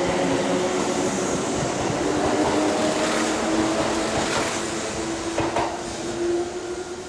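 Kintetsu limited express of 22000 series ACE and 12200 series Snack Car cars pulling away from the platform, with running noise and a low motor hum that rises slightly in pitch as it accelerates. A couple of wheel clicks sound about five and a half seconds in, and the sound fades as the last car goes by.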